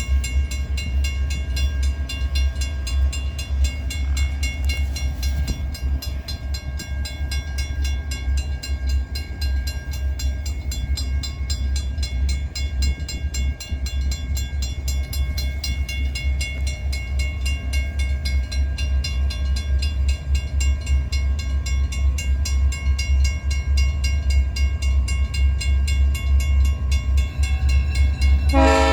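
Long train's railcars rolling past: a steady low rumble with rapid, even clicking of wheels over the rail, and a few thin steady tones above it. The locomotive horn sounds right at the very end.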